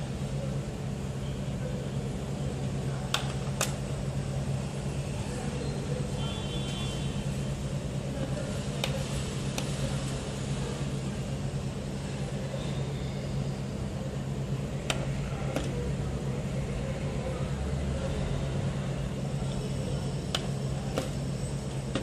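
A steady low hum with background noise, broken by a few sharp clicks several seconds apart as buttons on an LED wristband remote control are pressed.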